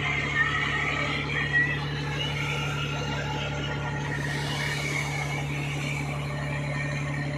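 Fishing boat's inboard engine running in a steady, even drone at low speed, labouring under the load of towing a disabled boat, with water rushing along the hull.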